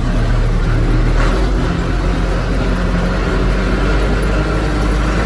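Diesel engine of a John Deere 455E crawler loader running steadily with a low rumble.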